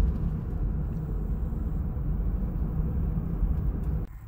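Low road and wind rumble of a moving car, steady and loud, cutting off suddenly about four seconds in.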